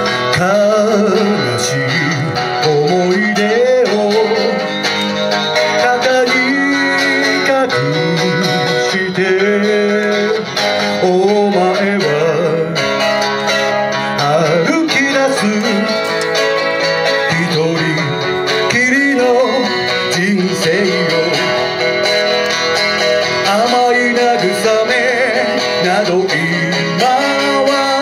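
A man singing a song while playing an amplified electric guitar.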